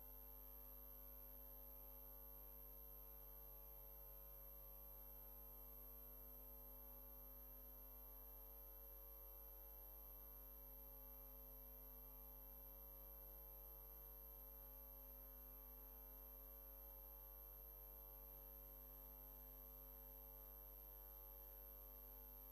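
Near silence: a faint steady hum with a thin high-pitched tone, unchanging throughout.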